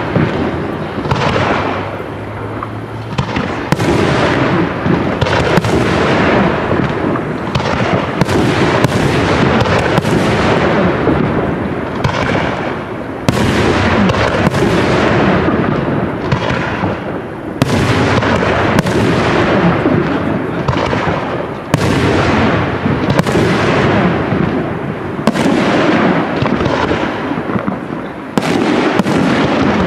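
Aerial firework shells bursting in a continuous barrage, a sharp bang every second or two, each trailing off in a fading echo.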